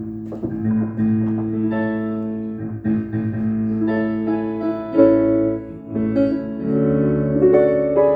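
Keyboard (electric piano sound) playing slow, held chords on its own for a band sound check, the chords changing every second or two.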